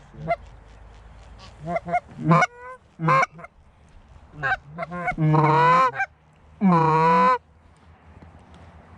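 Canada goose honking and clucking: a scatter of short clucks, then two long drawn-out honks of nearly a second each, about five and six and a half seconds in.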